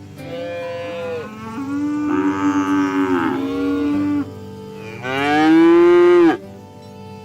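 Cows mooing: three long, drawn-out moos that fall in pitch as they end, the loudest about five seconds in.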